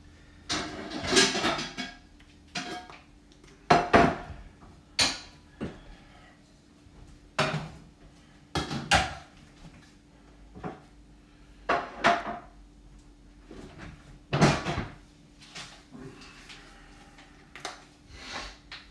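Dishes and cookware clattering now and then: about ten separate knocks and clinks, with a faint steady hum underneath.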